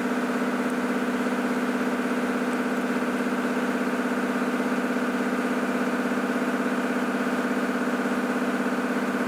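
Bosch GDR18V-LI 18 V cordless impact driver running free at no load, a steady whirring motor-and-gear hum at constant speed.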